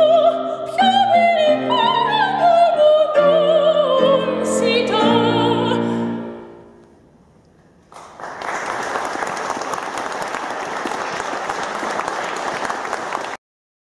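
Operatic soprano with piano accompaniment singing the last phrase of an aria, her voice sliding down with vibrato before voice and piano fade out about six seconds in. After a short hush, an audience applauds for about five seconds, then the sound cuts off abruptly.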